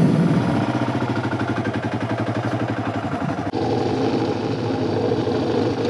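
Kawasaki KLR650's single-cylinder four-stroke engine running at low, steady revs as the bike rolls away, with an even pulsing beat. About three and a half seconds in, the tone of the sound shifts abruptly.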